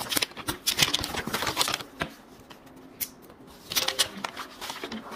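Paper rustling and crinkling as a baby handles and crumples the pages of a paper workbook, with small sharp clicks and taps mixed in. The rustling is busiest in the first two seconds and flares again about four seconds in.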